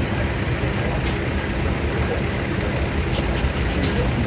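Russell & Company steam traction engine running on the move: a steady low rumble, with two short sharp hisses about a second in and near the end.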